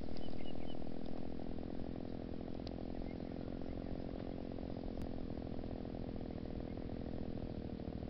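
Motorcycle engine running steadily as the bike approaches up the track, with a few short bird chirps in the first second.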